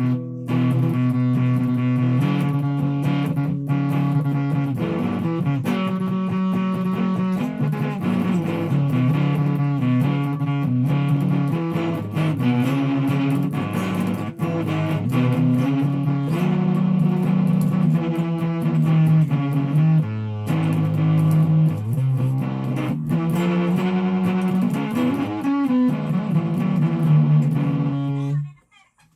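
Guitar music: a guitar playing a run of sustained notes and chords that change every second or so, stopping briefly near the end.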